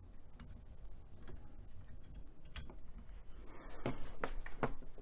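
Light clicks and taps of small metal parts being handled as the hot end's heater block assembly is fitted into the extruder's cooling block, with a denser run of knocks and scraping near the end.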